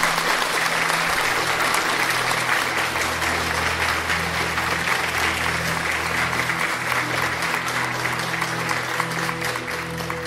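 Applause from many hands clapping over sustained low music notes, growing fainter near the end.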